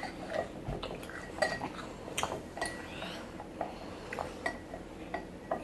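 Light, irregular clinks and taps of cutlery against a dish, some with a brief ring.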